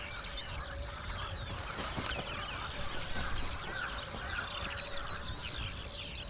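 Many birds calling together in a dense, overlapping chorus of short chirps and quick whistled notes.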